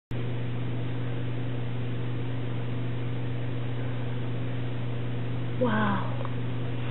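Steady low electrical hum, with a short vocal sound about five and a half seconds in.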